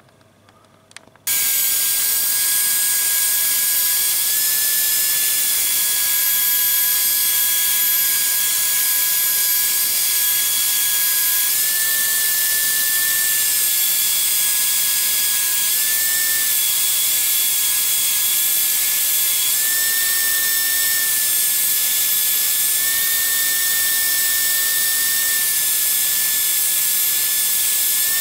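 Handheld belt sander clamped in a bench vise, running and grinding a steel knife blade, throwing sparks: a loud steady whine that starts abruptly about a second in and shifts slightly in pitch now and then.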